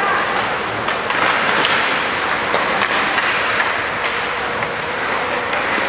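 On-ice sounds of an ice hockey game: a steady hiss of skates on the ice, with scattered sharp clicks of sticks and puck.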